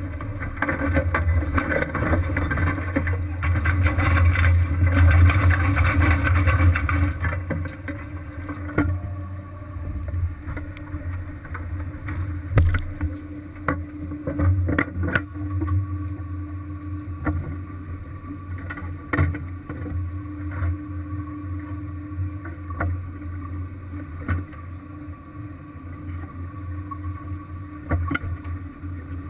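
A fishing boat's engine running with a steady low hum. A rushing noise is louder for the first seven seconds or so, and then scattered sharp knocks come every few seconds.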